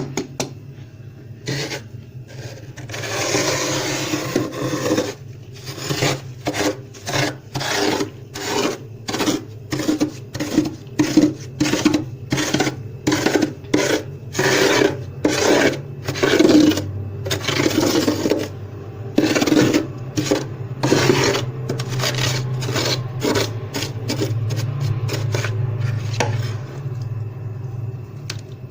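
Frost being scraped off a freezer's walls in quick repeated rasping strokes, about one or two a second, with one longer drawn-out scrape about three seconds in. The scraping stops shortly before the end.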